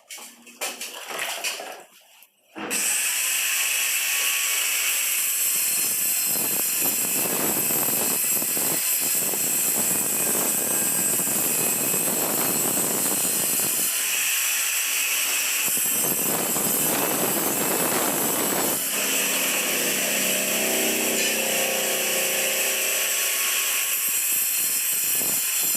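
A power tool starts about two and a half seconds in and runs steadily and loudly, with a hissy, high-pitched edge and small shifts in its sound as it works.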